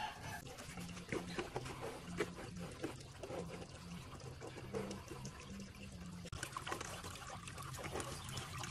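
Liquid trickling and dribbling, with small wet clicks and squelches, as a fresh cow stomach is pierced with a bamboo tube and its fluid drains through a wicker basket into a basin.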